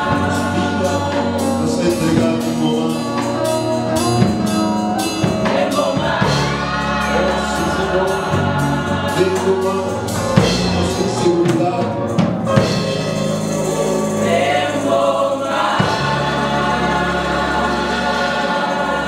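A choir singing a gospel hymn with instrumental accompaniment, sustained bass notes and a steady beat through the first part.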